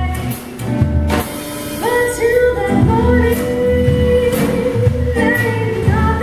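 A woman singing, holding one long note in the middle, over a plucked upright bass and a strummed acoustic guitar.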